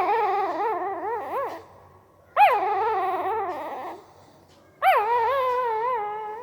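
Newborn pariah dog puppy whimpering in its sleep: three high, wavering cries, each about a second and a half long, with short pauses between.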